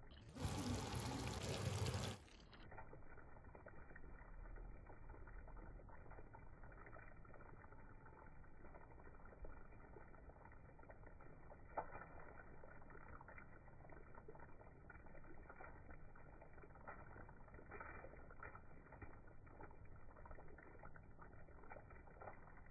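Chicken and fried brown onions frying in oil and gravy in a pan, sizzling faintly with light crackles as they are stirred. A louder burst of noise lasts about a second and a half from about half a second in, and a single click from the stirring utensil comes near the middle.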